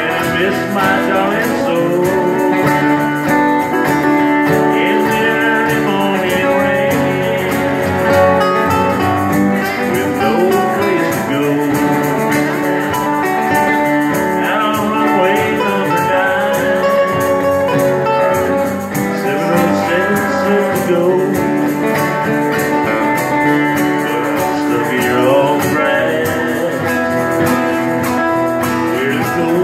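Live acoustic guitar played in a steady country-folk accompaniment, with a man singing at times.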